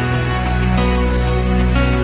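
Background music with sustained low chords and a light, evenly repeating beat.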